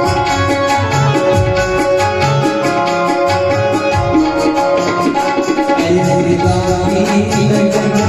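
Devotional bhajan music, instrumental: a hand drum plays a steady rhythm under sustained melodic notes, with a regular high metallic tapping keeping time.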